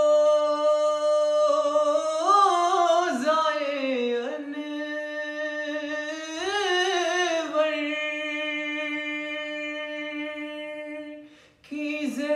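A man singing a naat a cappella, drawing out long held notes with wavering, ornamented turns. He takes a brief breath near the end and carries on.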